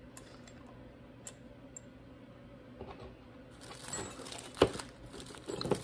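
Small metal clicks and clinks as a washer and retaining clip are fitted onto the clutch drum shaft of a chainsaw, mostly in the second half, with one sharp click a little past the middle the loudest.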